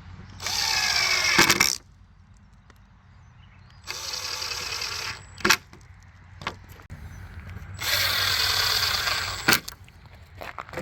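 Power drill run in three short bursts of about a second or a second and a half each, each ending with a sharp click.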